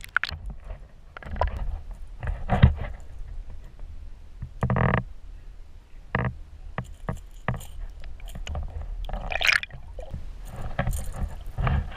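Muffled underwater noise from a submerged camera: water moving, a low rumble and irregular knocks and bumps, with a short buzz about five seconds in.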